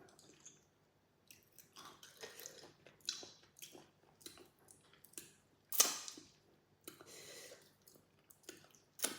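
Close-up mouth sounds of a person chewing food, with irregular wet smacks and clicks; the sharpest comes about six seconds in and another just before the end.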